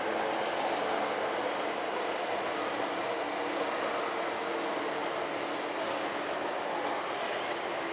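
Electric commuter trains running past on the tracks, a steady noise of wheels on rails with a few faint thin tones over it.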